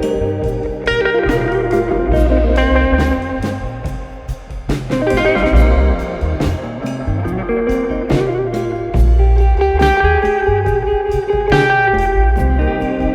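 Background music: guitar-led instrumental with a bluesy, slide-guitar sound and a steady bass.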